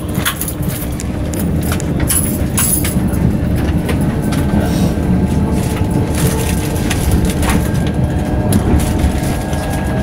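Interior running noise of a Hitachi Class 395 'Javelin' electric multiple unit under way: a steady rumble of wheels on rail with scattered clicks from the track. A faint steady whine comes in about four seconds in.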